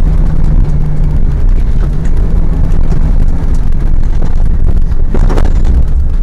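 Rally car driving along a rough dirt track, heard from inside: a loud, steady engine drone with road noise and small knocks from the bumps, and a brief louder noise about five seconds in.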